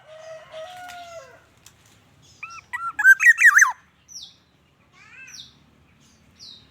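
Black-naped oriole singing a short phrase of loud, fluty whistles that rise and fall, about two and a half seconds in. It then gives three short, high, downward-sliding calls. A lower drawn-out call is heard in the first second and a half.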